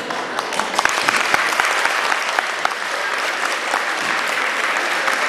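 Audience applauding, the clapping filling out about a second in and then carrying on steadily.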